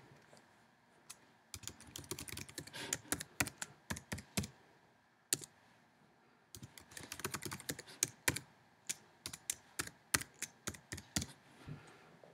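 Computer keyboard keys typed in two runs of quick clicks, with a pause of about two seconds and a single click between them. A new password is being typed, then typed again to confirm it.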